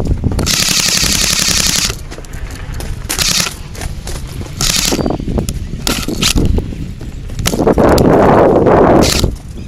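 Airsoft gun firing in rapid full-auto bursts: one long burst about half a second in, then several short bursts. Near the end comes a loud rushing noise.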